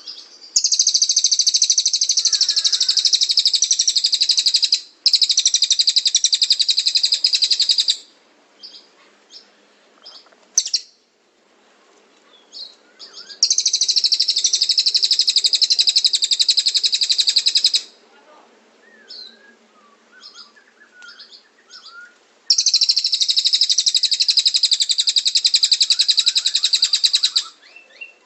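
Cililin songbird singing: long bouts of very rapid, high trilling, each several seconds long, coming three times, with scattered short chirps in the gaps between.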